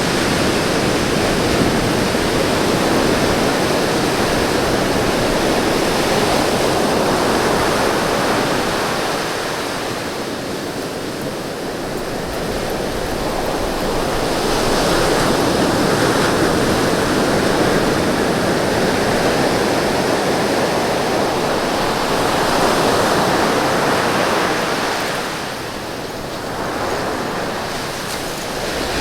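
Ocean surf breaking and washing up the shore, a continuous rush that swells and eases, falling back about ten seconds in and again near the end.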